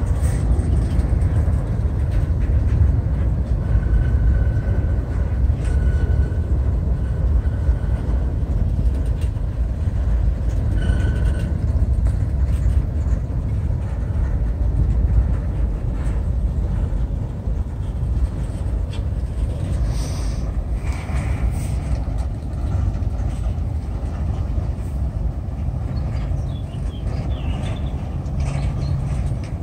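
Freight cars of a long Norfolk Southern mixed freight train rolling past at close range: a steady low rumble of steel wheels on rail, with scattered clicks and clanks.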